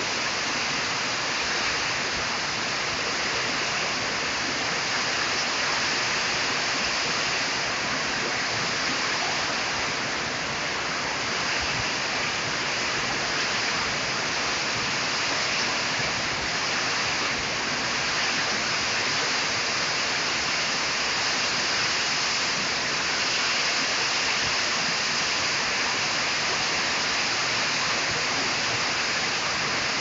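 Heavy rain pouring down in a strong wind, a dense, steady rushing hiss that holds even with no letup.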